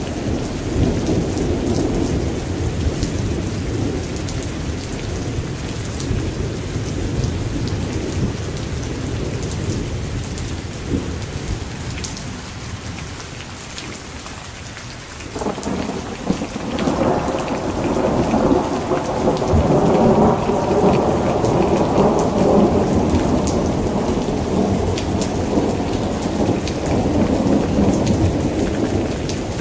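Steady rain with scattered drop ticks, under rolling thunder. The rumble eases off around the middle, then a long roll builds again about halfway through and stays heavy to the end.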